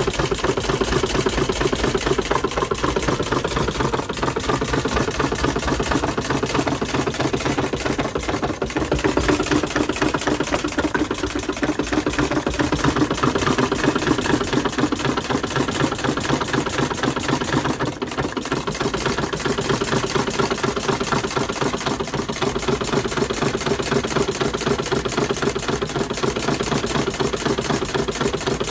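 Model Atkinson cycle engine running, a fast, steady mechanical rattle from its firing and linkage. It rattles as an engine not yet run in, its ring and valves still bedding in.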